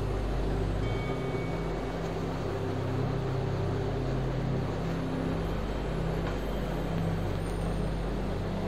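Steady low hum, unchanging throughout.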